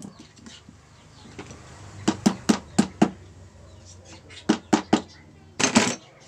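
Sharp metal clicks and taps of a screwdriver and pliers working a lock clip into the bore of a Nissin motorcycle front brake master cylinder: five quick taps about two seconds in, three more a couple of seconds later, then a louder clatter near the end.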